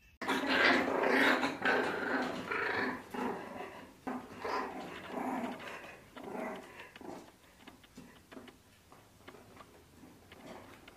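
Puppies growling while they wrestle in play: a run of rough, uneven growls, loudest in the first few seconds, then coming in shorter, fainter bursts toward the end.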